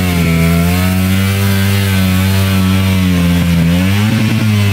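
Enduro dirt bike engine revving hard and held at high revs, its pitch wavering slightly and dipping briefly near the end, as the bike is bogged down in deep mud.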